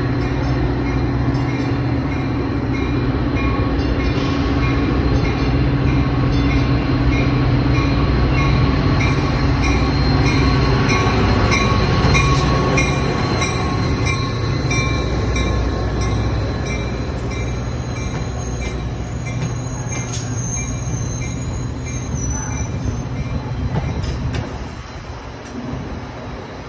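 A Trinity Railway Express push-pull commuter train, a diesel locomotive hauling bilevel coaches, passes close by. The locomotive's engine runs with a low steady hum over the noise of the wheels on the rails. It grows louder as the locomotive draws alongside, then eases off as the coaches go by, and falls away near the end.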